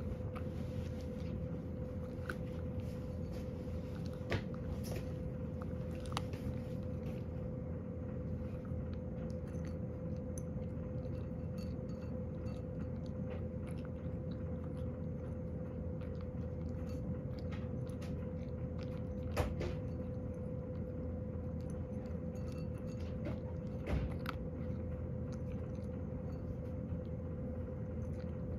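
Cat eating dry kibble: a steady run of small crunches and clicks, with a few sharper clicks now and then.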